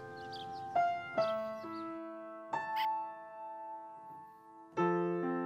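Slow, sparse piano music: a few notes struck at a time and left to ring, with a longer held pause in the middle.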